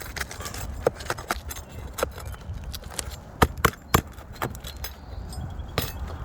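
Irregular sharp taps, clicks and knocks of hand tools working on roof shingles. There are three loud strikes in quick succession around the middle, with a low rumble underneath.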